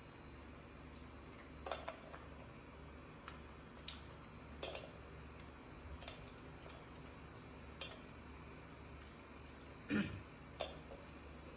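Peanuts in their shells being cracked open and handled over a plate: scattered small cracks and clicks at irregular intervals, with a louder knock about ten seconds in, over a faint steady low hum.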